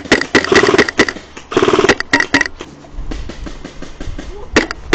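Airsoft guns firing: a rapid, irregular run of sharp clicking shots for the first two and a half seconds, a quieter spell with a low rumble, then more shots near the end.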